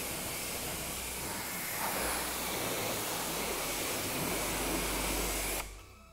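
Pressure washer jet spraying water onto a car's front bumper, a steady hiss, rinsing off citrus pre-cleaner and bug splatter; it cuts off suddenly near the end.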